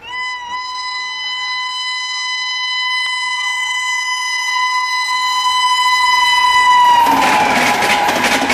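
WAP7 electric locomotive blowing its horn in one long blast as it approaches at speed. About seven seconds in, the horn's pitch drops as the locomotive passes and the horn stops. A loud rush and clatter of the LHB coaches passing at about 130 km/h then takes over.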